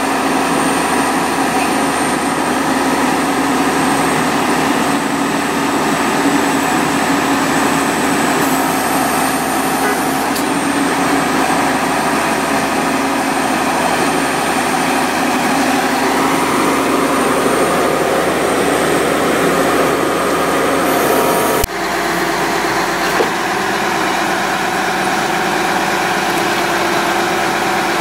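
Horizontal directional drilling rig's engine and hydraulics running steadily as the carriage pushes drill rod, with a thin high whine over the engine; the sound changes abruptly about three-quarters of the way through.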